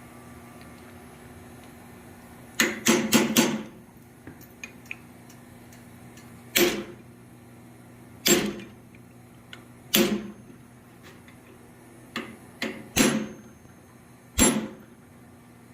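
Hand hammer striking steel on an anvil while forging: a quick run of about four blows, then single blows every couple of seconds, each with a short ring. A steady low hum runs underneath.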